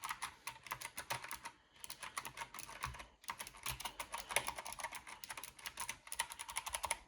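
Fourze GK 100 mechanical keyboard with blue switches being typed on quickly, a dense run of sharp clicks with brief pauses about two and three seconds in.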